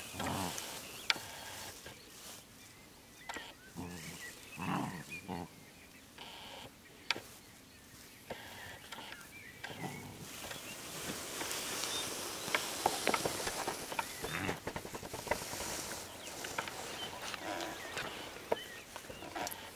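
Puppies play-fighting on grass: short bursts of growling every few seconds, with scuffling and rustling between them.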